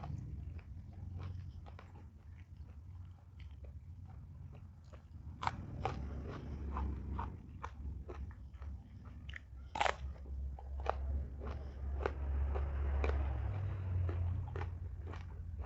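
A person biting and chewing crunchy food close to the microphone: irregular sharp crunches, the loudest about ten seconds in, over a steady low hum.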